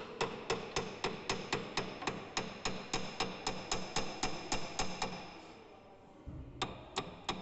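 Small steel hammer rapidly tapping the unbolted cast-iron gap piece of a lathe bed, about four ringing metallic blows a second, to knock it loose from its seat. The tapping stops about five seconds in, and three more blows follow near the end.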